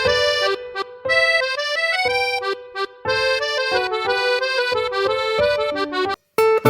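Huawei Y3 (2017) stock ringtone: a short instrumental melody over sustained chords. It cuts off about six seconds in, and after a brief silence the next ringtone starts.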